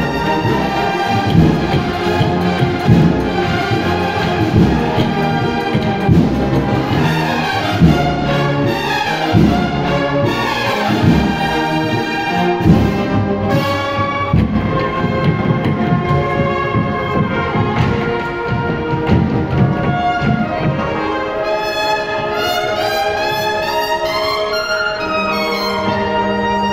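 Cornet-and-drum band (banda de cornetas y tambores) playing a processional march: massed bugles and brass over a steady drum beat. About 21 seconds in the drums drop out, leaving the brass on held chords.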